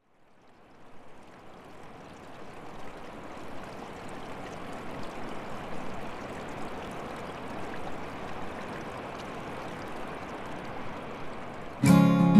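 A steady rushing noise like running water fades in and holds; near the end, strummed acoustic guitar music starts abruptly and much louder.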